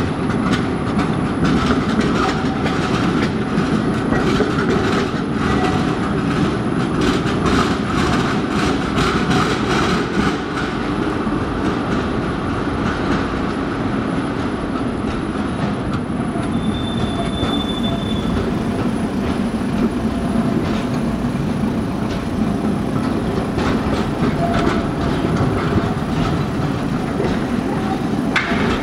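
Škoda 15T low-floor articulated tram rolling slowly past on street track, its wheels clicking and knocking over rail joints and points, most busily in the first half. A brief high squeal sounds about halfway through.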